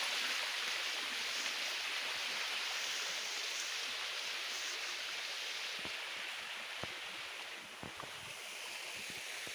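Small waterfall: water falling and splashing steadily as an even hiss, with a few faint clicks in the second half.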